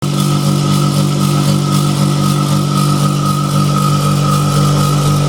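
Viessmann Vitocal 200 heat pump compressor running with a loud, steady hum and a steady higher whine: a bad sound with strong vibration, taken for a failing compressor.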